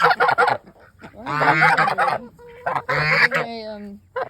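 Domestic waterfowl in a backyard flock calling loudly: a few short calls at the start, then two long drawn-out calls about a second and a half apart.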